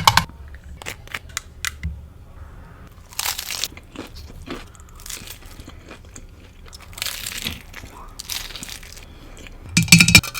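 Close-miked crunchy bites and chewing of a Buldak ramen taco: several crackling crunches a few seconds apart, the loudest cluster near the end.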